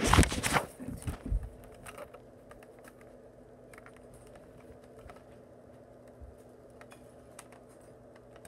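Handling noise from the recording device: a loud rubbing and bumping in the first second, then scattered light clicks and taps over a faint steady hum.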